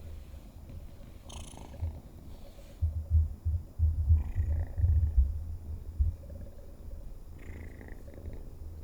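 Selkirk Rex kitten purring, a pulsing low rumble that grows louder for a few seconds in the middle.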